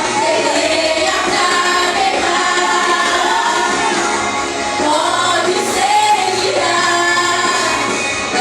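A vocal group singing a Christian worship song with musical accompaniment, female voices to the fore.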